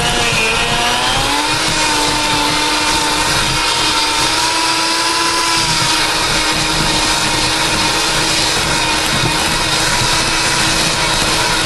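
Electric hand mixer running steadily as its beaters work softened cream cheese until creamy. The motor whine rises a little in pitch about a second in, then holds steady.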